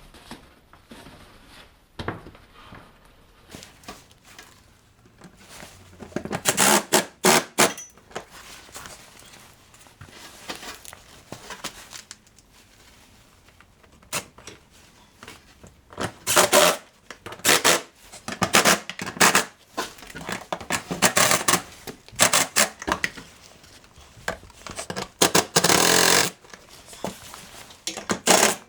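Repeated bursts of scraping and rubbing as the closed end of a wrench is slid around under the rubber boot of an ATV's belt-housing cover to seat it, with light tool and part handling between the bursts.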